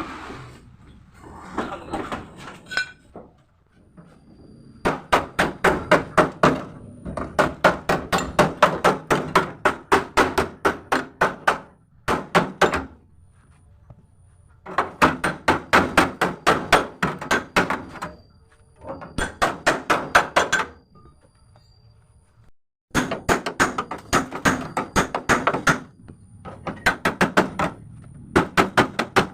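Rapid hammer blows on the crash-damaged body metal of a Mitsubishi L300 during panel beating, about five blows a second in runs of several seconds with short pauses between.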